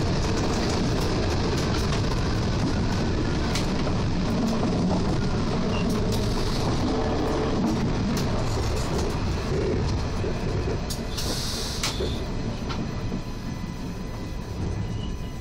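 SWEG NE81 train running on the rails, heard from its driving cab: a steady rumble with scattered clicks that grows quieter over the second half. A short hiss about eleven seconds in.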